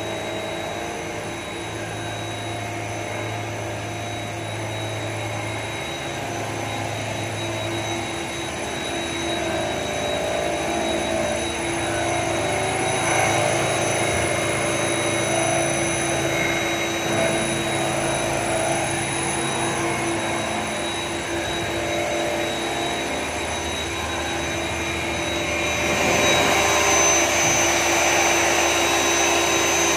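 CNC vertical machining centre milling: the spindle and machine run with a steady whir and steady high-pitched whines. The sound grows louder and hissier about four seconds before the end.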